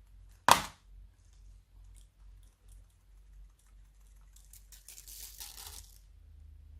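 Slime being worked by hand: one loud pop about half a second in, then faint scattered clicks, then about a second and a half of dense crackling near the end.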